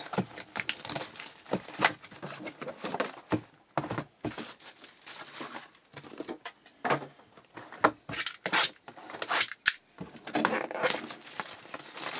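Plastic shrink wrap being torn off a trading-card box and crinkled in the hands, in irregular crackles and short rips with the odd rustle of the cardboard box.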